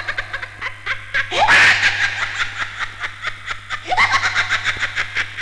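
Cartoon creature voices laughing and snickering in a rapid chatter, with two rising squeals, one about a second and a half in and one near the end, over a steady low hum.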